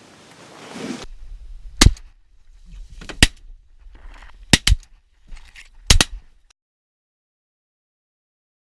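Shotgun shots from duck hunters: about six sharp blasts over some four seconds, the loudest about two seconds in, with the later ones coming in quick pairs.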